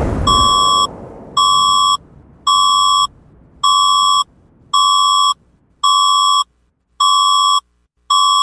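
Philippine EAS alarm tone: an electronic beep repeating about once a second, each beep just over half a second long. The noisy tail of a thunder-and-explosion sound effect fades out over the first two seconds.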